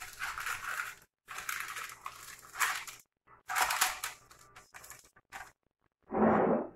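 Parchment paper crinkling and rustling in several short bursts as dough balls are pressed down onto a lined baking tray. A brief louder, lower sound comes near the end.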